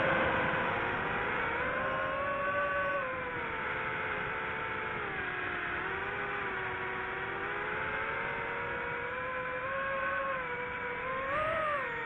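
Quadcopter drone's motors and propellers whining, the pitch rising and falling as the throttle changes, with a quick rise and drop near the end.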